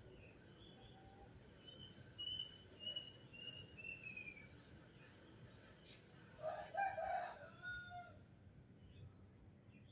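Animal calls over a faint background: a short run of small-bird chirps, each note falling in pitch, then about halfway through a louder call of about a second and a half, broken into several parts.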